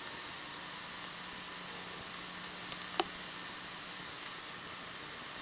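Steady hiss, like recording or line noise, with one sharp click about halfway through.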